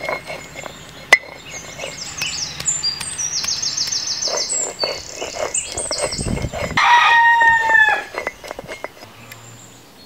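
A rooster crows once, about seven seconds in, the loudest sound here; small birds chirp rapidly before it. Under them, a stone roller scrapes and grinds on a flat grinding stone, crushing ginger and garlic to paste.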